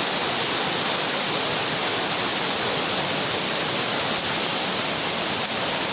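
Flash-flood water rushing past in a swollen stream, a steady, unbroken rush.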